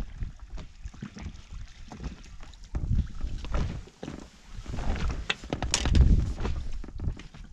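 Wind buffeting the microphone and small waves slapping an inflatable boat, with a run of clicks and rustles from about three to six seconds in as a perch is swung aboard and handled; the loudest moment comes near six seconds in.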